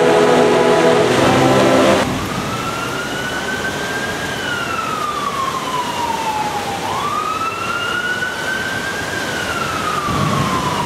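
A concert band holds sustained chords for about two seconds, and then the sound cuts off. An emergency vehicle siren follows, wailing in slow rising and falling sweeps, each lasting several seconds, over steady background noise.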